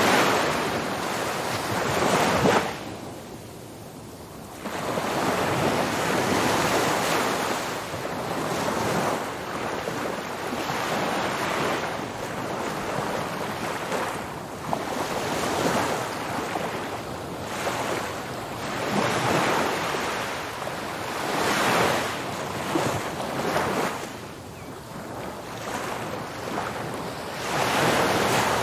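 Ocean waves breaking and washing up a beach, the surf swelling and falling back every few seconds, with some wind on the microphone.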